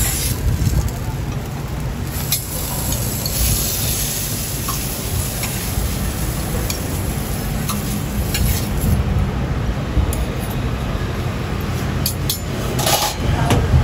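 Steel tongs and a metal spatula clinking and scraping as griddle-fried roti prata is lifted and packed, with a few sharp clicks near the end, over a steady low rumble of street traffic.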